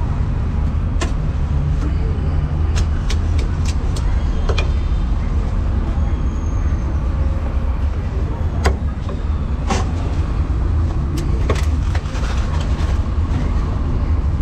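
Irregular sharp chops of a steel cleaver striking a thick round wooden chopping block as roast meat is cut, including a quick run of them about three seconds in. Beneath them is a steady low rumble of street traffic, which is the loudest sound.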